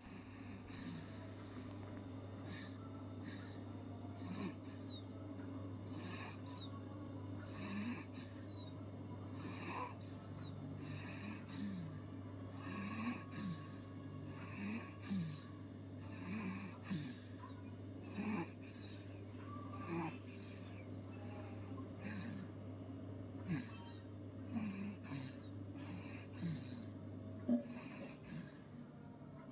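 Baby snoring in sleep: rasping, snorting breaths, irregular at about one a second.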